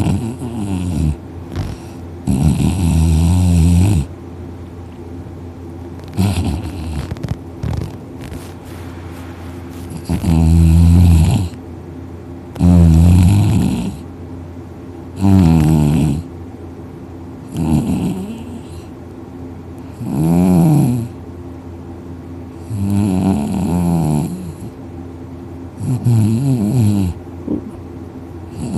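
A man sleeping on his back, snoring loudly. Each breath brings one rasping snore of a second or two that bends up and down in pitch, about every two and a half seconds.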